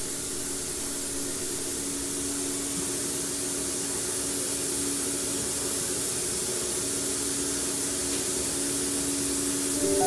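Steady hiss of rushing air with a faint, even hum beneath it, growing slightly louder.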